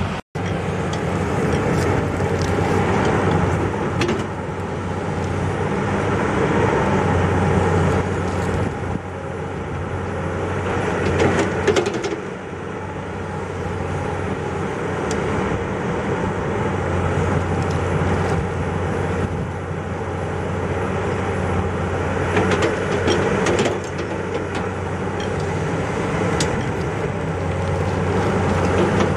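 Komatsu hydraulic excavator's diesel engine running steadily as it digs a ditch, its level rising and falling as the arm and bucket work, with a few knocks along the way.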